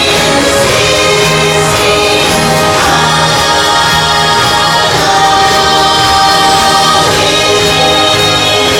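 Parade music with a choir of voices singing over a full backing track, loud and steady.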